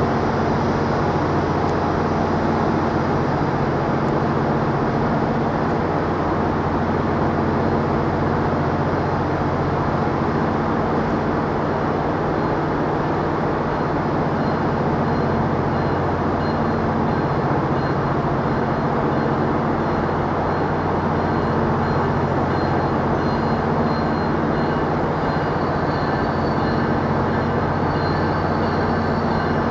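Train locomotive at a station running steadily, a constant deep hum with several low tones and no change in pitch.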